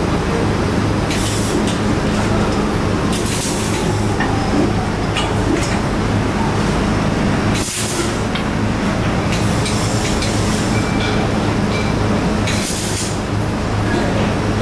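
CO2-shielded MIG welding arcs crackling and sizzling in bursts of about a second, four or five times, over a steady low hum.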